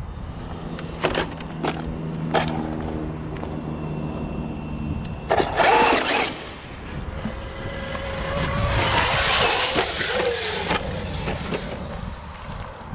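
Traxxas UDR electric RC truck driving over rough, rutted ground. A steady motor whine with sharp knocks over bumps runs for the first few seconds, a loud rough burst comes around the middle, and a longer stretch of rough tyre-and-motor noise with a wavering pitch follows near the end.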